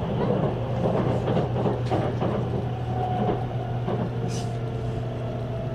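Electric train running, a steady low hum with a faint, slowly falling whine and a few knocks, and a brief hiss about four seconds in.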